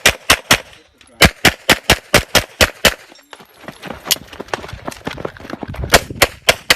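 CZ SP-01 pistol fired in fast strings during a USPSA stage, shots about a quarter second apart. A run of about eight shots comes in the first half, then a quieter stretch of fainter shots, then another quick run near the end.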